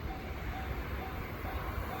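Japanese railway level crossing warning bell ringing, a repeating electronic ding about two times a second, over a low rumble.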